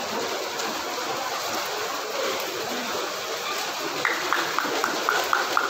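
Steady background hubbub of a sports hall with spectators. About two-thirds of the way in, a rapid run of about eight short, high pips, roughly five a second.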